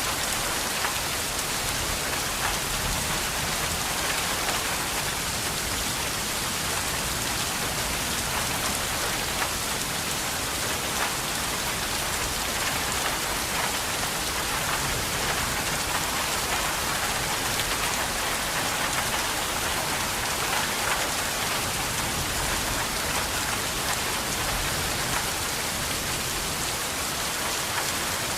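Steady rain falling, a dense even hiss with scattered drop ticks.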